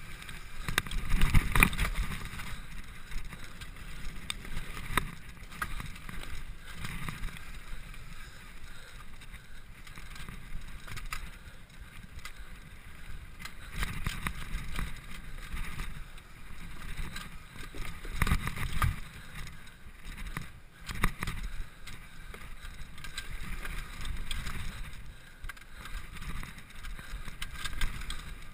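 Mountain bike descending a dirt forest trail at speed: tyres rolling over dirt and roots, and the bike clattering and rattling over bumps, with wind rumbling on the camera microphone. The hardest knocks come about a second in and again about 18 seconds in.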